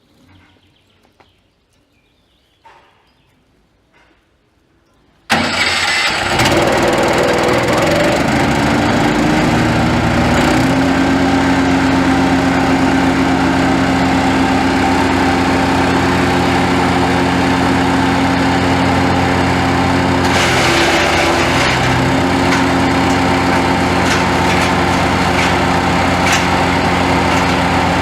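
Wood chipper shredder's engine starting abruptly about five seconds in after a quiet stretch, then running steadily, its pitch rising a little about ten seconds in and briefly dipping around twenty seconds.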